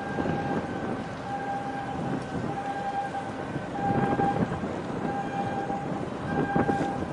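Ship and tugboat engines droning across the water, with a high whine that comes and goes. Wind gusts buffet the microphone about four seconds in and again near the end.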